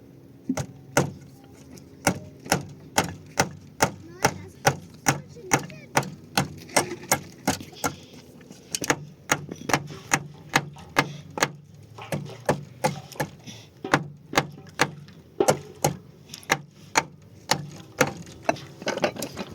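Hammering: a steady run of sharp blows, about two a second, with a few short pauses.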